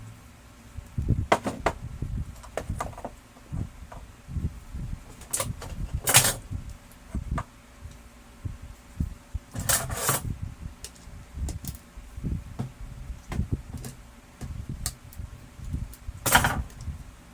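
Plastic parts of a laser printer being handled during disassembly: scattered clicks and knocks, with short scraping sounds about six, ten and sixteen seconds in.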